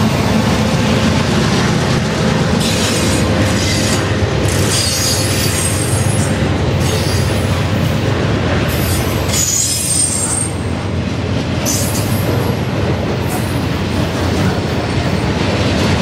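CN freight train's cars rolling past close by: a steady rumble and clatter of steel wheels on the rails, broken several times by bursts of high-pitched wheel squeal.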